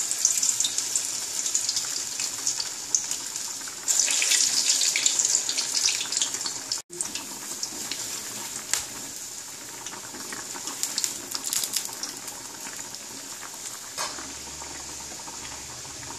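Small urad dal bondas deep-frying in hot oil in an iron kadai: a steady hissing sizzle, louder in the first half and quieter in the second, with a few light metal clicks of a spider strainer against the pan.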